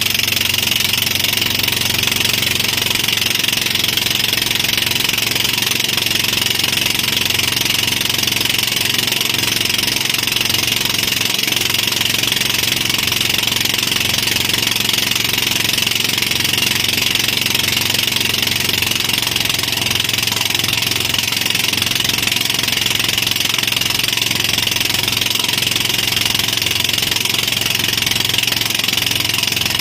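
Towing boat's engine running steadily at speed, under a loud steady rush of wind and water.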